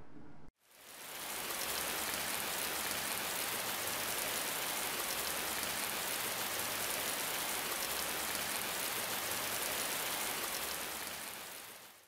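Steady rain, an even hiss that fades in about a second in, holds level, and fades out near the end.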